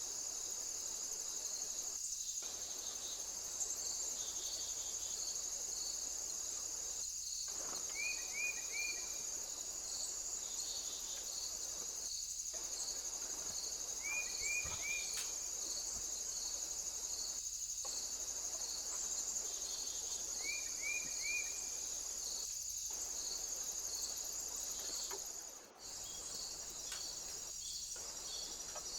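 Crickets chirping in a steady chorus: a continuous high trill with a rhythmic chirp about twice a second beneath it. Every six seconds or so comes a short call of three quick notes, and the sound cuts out for a moment near the end.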